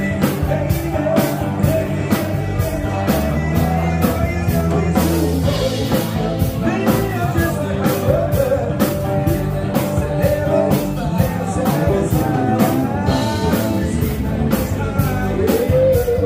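Live rock band playing loudly: a singer over electric guitar, bass and a steady drumbeat.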